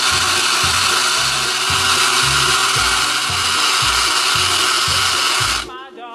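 A loud, steady mechanical whirring, like a small motor running, over background music with a steady beat; the whirring cuts off suddenly near the end, leaving the music.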